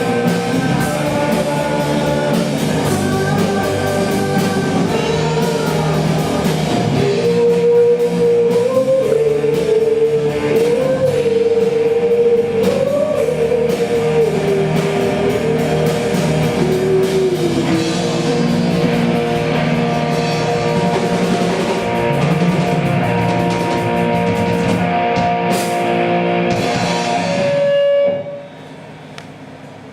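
Live rock band of drums, bass and electric guitars playing an instrumental passage with a wavering lead melody line in the middle. About 28 seconds in the band stops on a held note and the sound drops suddenly to a much quieter background.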